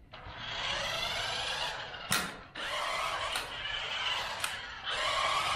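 Battery-powered electric RC off-road truck running on throttle: a steady whine from its electric motor and gearing, with a few sharp clicks. It cuts out briefly about two and a half seconds in, then comes straight back on.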